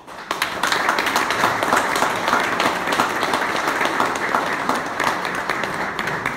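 Audience clapping, breaking out all at once and keeping up steadily.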